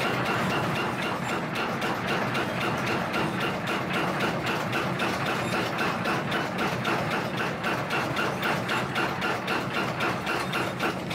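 A small belt-driven power hammer strikes a steel kitchen-knife blade in a fast, steady rhythm of several blows a second while the blade is shaped under it.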